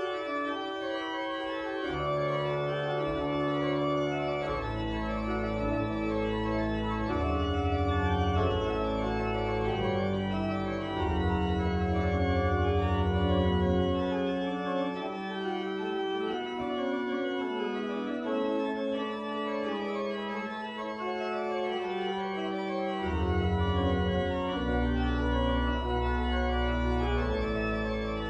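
Church organ playing a piece on manuals and pedals: sustained chords moving from one to the next, with deep pedal bass notes coming in about two seconds in, dropping out for a stretch in the middle, and returning near the end.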